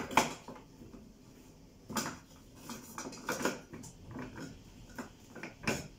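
Scattered clicks and knocks of hard plastic as the top of an electric ice cream maker is handled, about five separate knocks, the loudest near the end.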